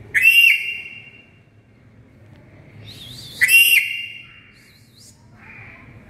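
Black-capped lory giving two loud, high-pitched calls about three seconds apart, each about half a second long, with softer squeaky warbling notes between them.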